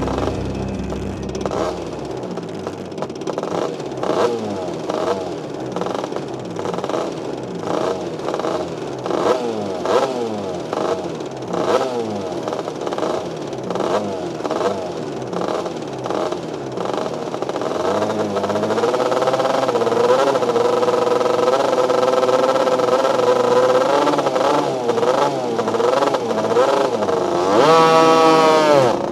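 Superkarts' 250cc two-stroke engines blipped on the grid, revs rising and falling over and over. Later they are held at higher, steadier revs, and near the end they rise sharply as the karts launch from the wall start.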